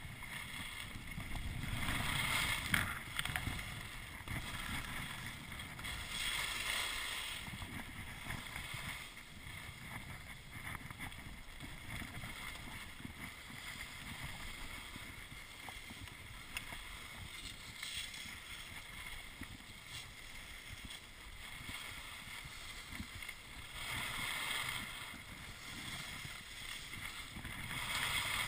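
Wind buffeting the microphone while skiing downhill, with skis sliding and scraping over snow; louder swells of scraping hiss come about two, six and twenty-four seconds in.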